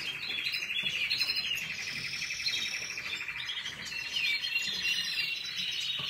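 Domestic canaries singing: fast rolling trills and chirps that run on without a break, with some sweeping notes in the second half.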